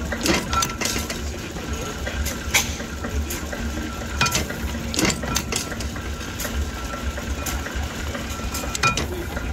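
Horizontal stationary engine running slowly, with a steady low rumble and hum and irregular metallic clinks from its moving parts.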